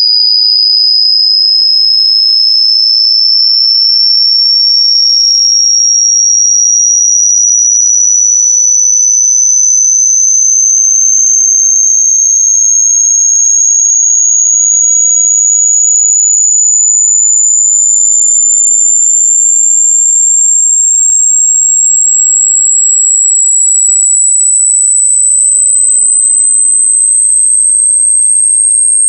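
A loud, very high-pitched electronically generated pure tone, climbing slowly and steadily in pitch: a single-tone sine sweep.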